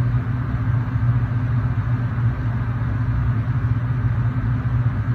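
A steady low mechanical hum, like a small motor running, holding unchanged throughout.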